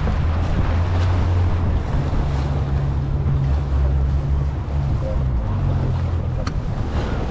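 An inflatable boat's outboard motor running with a steady low drone, with wind buffeting the microphone and the wash of water against the boat.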